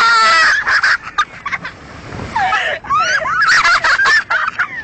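High-pitched excited shrieking and squealing laughter from young people, warbling up and down, loudest at the very start and again in the second half.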